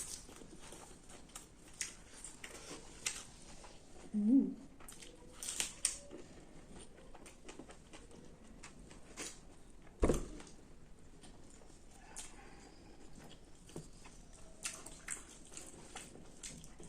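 A person chewing and eating close to the microphone: a run of small wet clicks and crackles, with a short voiced sound about four seconds in and a single sharp knock about ten seconds in.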